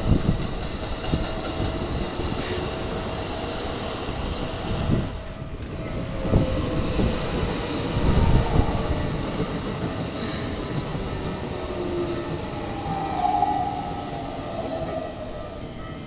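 Keikyu and Toei commuter trains passing each other over a level crossing, their wheels rumbling and clattering, loudest about six and eight seconds in. The crossing's warning bell keeps ringing in a steady tone. The train noise fades near the end as the last train pulls away.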